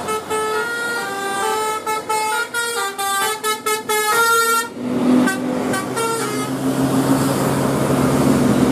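Telolet bus horn, a multi-tone musical air horn, playing a quick tune of short stepped notes for about four and a half seconds, then a steady low drone with road noise.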